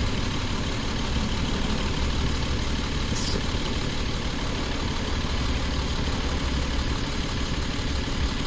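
2011 Jeep Wrangler's 3.8-litre V6 idling steadily while misfiring, with one ignition coil dead and getting no firing pulses.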